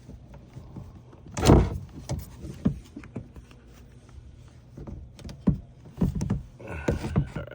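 Irregular handling knocks, clunks and clicks of hands connecting a portable jump starter's clamps to a watercraft battery, with one loud thump about one and a half seconds in and a quick run of taps and clunks near the end.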